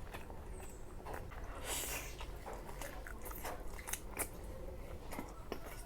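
A person eating close to the microphone: scattered wet clicks of chewing and biting, with a brief louder crunch about two seconds in.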